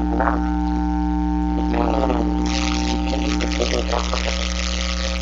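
Steady low electrical hum with a buzzing stack of overtones, with a few faint, brief voice-like sounds over it.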